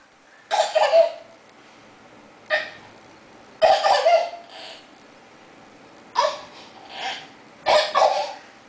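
Short breathy voice sounds with no words, about five of them a second or so apart, separated by quiet room tone.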